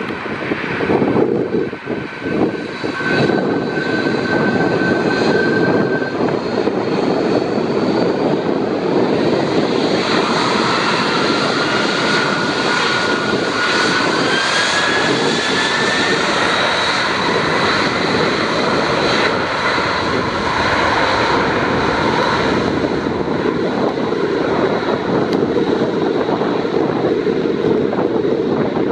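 Boeing 767-300 jet engines running loud and steady on the runway, with a high whine over the roar that rises in pitch from about ten seconds in as the engines spool up for the takeoff roll.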